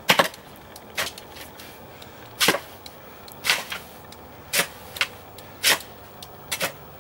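Long-handled shovel digging into wet, muddy soil: about eight short, sharp chops and scrapes of the blade at irregular intervals.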